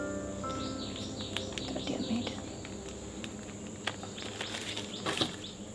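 Small birds chirping in quick, falling calls over a steady high-pitched insect drone. A few light clicks come near the end.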